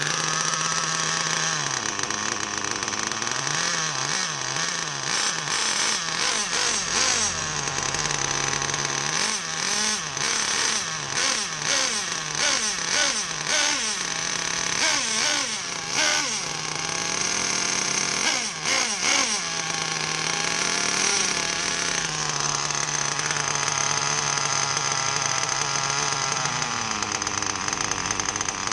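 Nitro RC car engine, a HYPER .28 with a three-needle carburettor, running while its carburettor is being tuned. It revs up and down repeatedly, then settles into a steady idle for several seconds before revving again near the end. It is on a short test run with only two of its cylinder-head bolts fitted.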